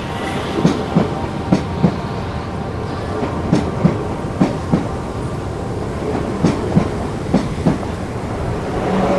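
Passenger train passing close below, a steady rumble with its wheels clacking over rail joints in pairs, about one pair a second.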